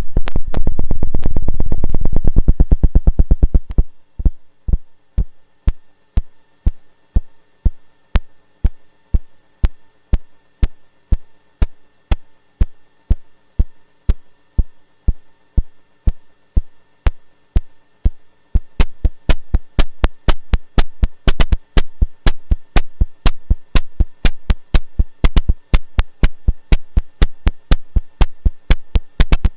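Hive Mind Synthesis SODApressed Eurorack noise percussion module firing short noise hits in a steady sequenced rhythm. For the first four seconds the hits are rapid with a long decay and run together into a loud wash. They then shorten into crisp hits about three a second, and from about 19 s in a faster, louder, accented pattern takes over.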